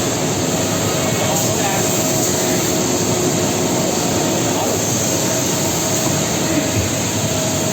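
Four-head CNC router (Holztek HT-R4M) milling hollows into wooden chair seats: the spindles run with a steady whine over a constant rush of cutting noise.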